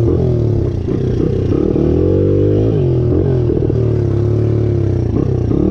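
1997 Honda XR80R's small four-stroke single running through a Pro Circuit T4 exhaust. It is revved up about a second and a half in, drops back near three seconds, blips once more and then runs steadily at a fast idle.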